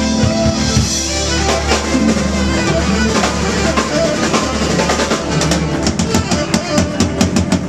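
Live rock band playing with bass and a full drum kit; in the last couple of seconds the drummer plays a run of quick, even hits.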